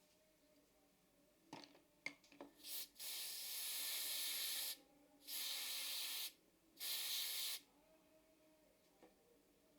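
Three bursts of pressurised spray hissing, each with a sudden start and stop: the first lasts nearly two seconds, the next two are about a second each. A few light clicks come just before the first burst.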